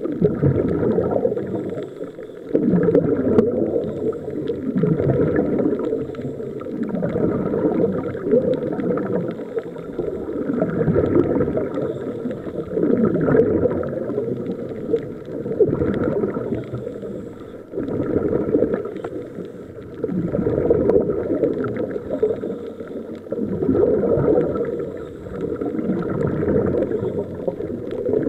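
Scuba diver breathing through a regulator underwater: exhaled bubbles gurgle and rush in swells every two to three seconds.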